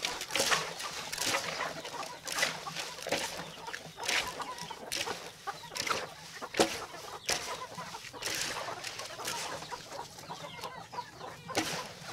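Hands churning damp sprouted feed in a plastic basin, making a repeated rustling rush each time a handful is lifted and dropped. Chickens cluck now and then in the background.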